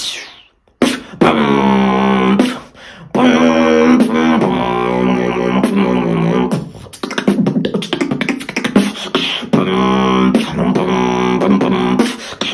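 Solo vocal beatboxing: sharp mouth-made percussion hits layered with long, held pitched vocal tones, after a brief pause near the start.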